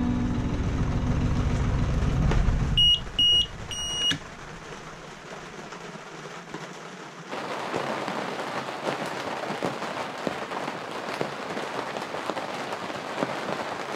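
Sailboat's inboard engine running, then shut down about three seconds in, followed by three short beeps from the engine panel alarm as the engine stops. From about seven seconds in, rain pattering steadily on the cockpit canvas enclosure.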